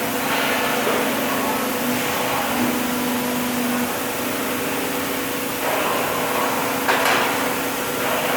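Hydraulic CNC press brake running with a steady hum. Its tone shifts briefly about three seconds in, and there is a sharp knock about seven seconds in.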